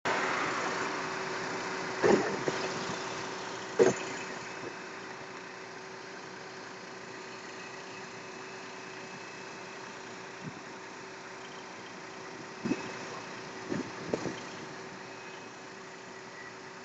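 Heavy tow truck's engine idling steadily with a constant hum, broken by a few sharp knocks and thumps, the loudest two near the start.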